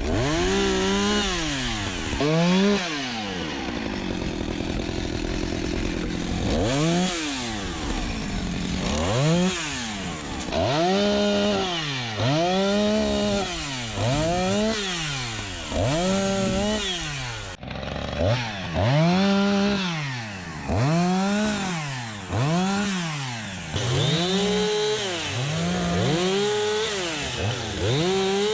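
Two-stroke chainsaw bucking a birch log, its engine pitch rising and falling over and over, about once a second or so, as the chain is pressed into the wood and eased off. The sound cuts out sharply for a moment about two-thirds of the way through.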